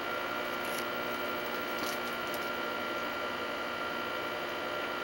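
Steady hiss and hum with a thin, unchanging high tone: the background noise of the recording equipment. A few faint soft ticks come about two seconds in.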